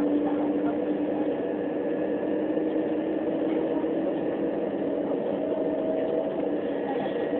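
Cabin noise of a Class 375 Electrostar electric multiple unit running at speed: a steady rumble of wheels on rail with a few held humming tones from the running gear.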